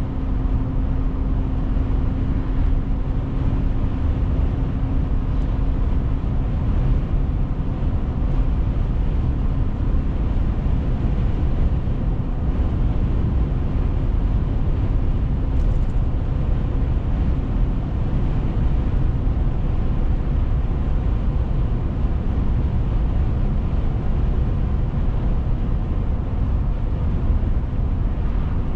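Steady road and engine rumble of a car driving, with a low hum that fades out about five seconds in.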